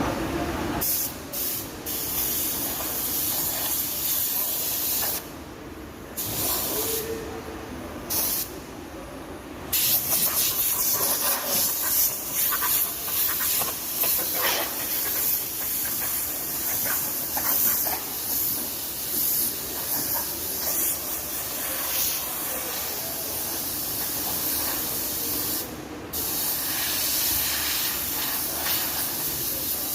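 Compressed air hissing from air-powered body-shop tools at a car panel. It cuts out briefly a few times in the first ten seconds and once more later.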